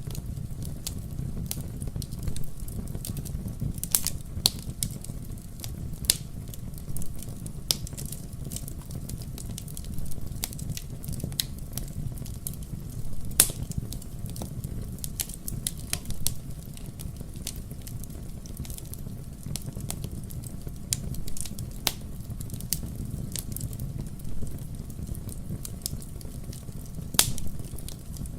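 Wood fire burning in a fireplace: a steady low rumble of the flames with irregular sharp crackles and pops of the burning logs.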